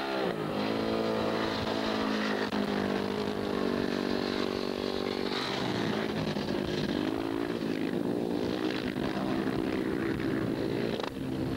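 Racing sidecar outfits' motorcycle engines running at high revs, the pitch rising and falling as they take the bend; the sound eases off a little near the end.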